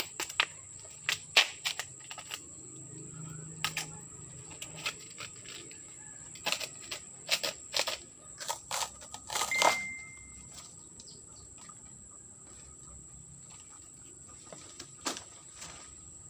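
Banana-trunk sheaths being peeled and snapped apart by hand: a run of sharp, irregular cracks and snaps, thickest in the first ten seconds, with one more near the end. A steady high-pitched whine runs underneath.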